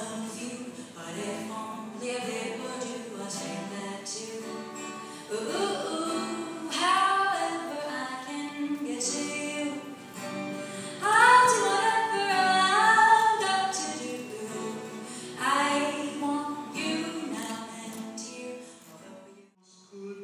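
A woman singing a melody with music behind her, breaking off briefly near the end.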